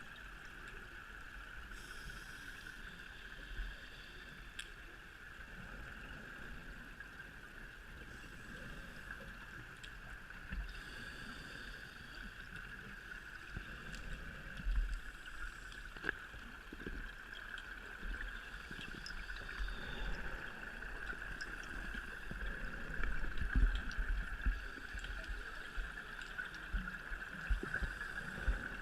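Underwater sound on a scuba dive, picked up by the camera in its housing: a steady hiss with low rumbling and gurgling that swells in places, and scattered faint clicks.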